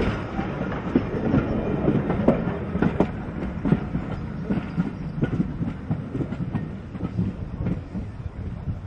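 Railway passenger coaches rolling along the track, their wheels clacking irregularly over the rail joints. The clacking fades steadily as the train moves away.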